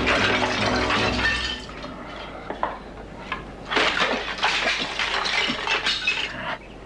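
A pane of glass shattering, shards clattering down for about a second and a half, then scattered crunches and clinks of someone stepping over the broken glass.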